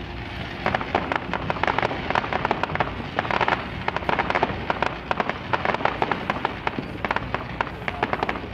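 Fireworks going off in a dense, rapid crackle of sharp pops, many a second, over a continuous rushing hiss.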